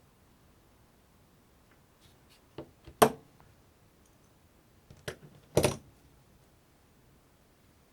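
A few sharp clicks and snaps, as of hard objects being handled. The loudest click comes about three seconds in, and a short clattering snap comes a little after five and a half seconds.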